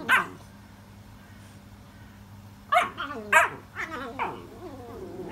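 American Bully puppies barking and yelping as they play-fight: one sharp bark at the very start, then after a pause a quick run of about five barks and yelps, each dropping in pitch.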